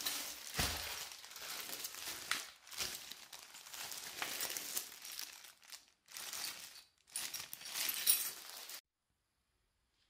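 Plastic packaging bags crinkling and rustling in irregular bursts as they are handled and pulled out of a box; the sound cuts off suddenly near the end.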